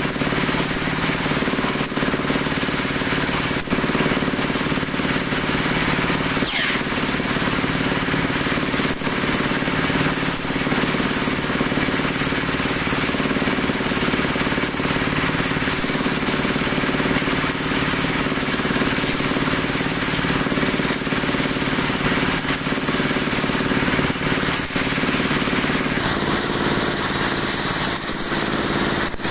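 Broom-handle dowel machine running steadily: its motor's hum goes on under the hiss of the cutter shaping wood, and the hum's pitch shifts a little near the end.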